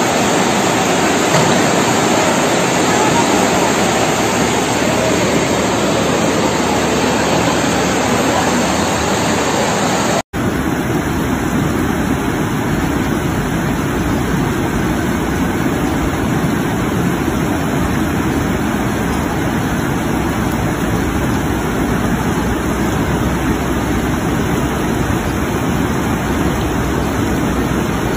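Steady rushing of muddy floodwater pouring down a street. About ten seconds in it breaks off suddenly and gives way to the steady rush of a swollen river in flood.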